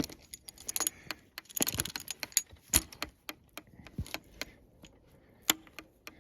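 Irregular clicking and clacking of a hand tool being handled and clamped onto plastic maple sap tubing, busiest about two seconds in, with a couple of sharp snaps, the last one near the end.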